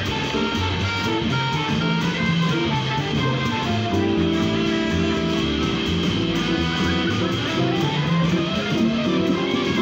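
A small live jazz-style band playing at a steady level: a moving upright bass line under keyboard chords and a drum kit, from a group that includes a saxophone.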